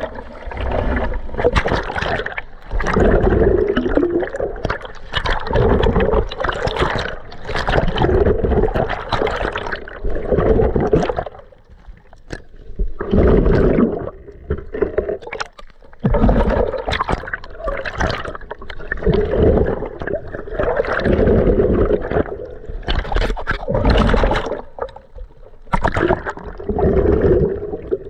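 Muffled sloshing, gurgling water against a camera held at and just below the surface while snorkeling, swelling and fading every couple of seconds with the swimming strokes.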